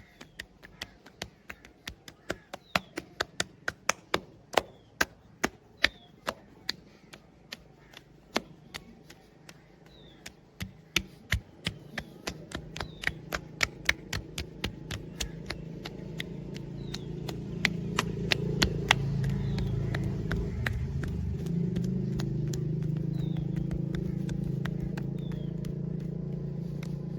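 Rhythmic sharp strikes of hands chopping on a body in a percussive massage, about two to three a second, thinning out after about 16 seconds. A low droning hum, like a nearby engine, builds under them from about halfway and stays steady to the end.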